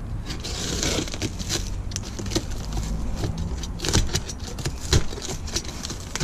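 Box cutter slicing along a corrugated cardboard box, with the cardboard crackling and scraping and a scatter of small clicks and a couple of sharper knocks, over a low rumble.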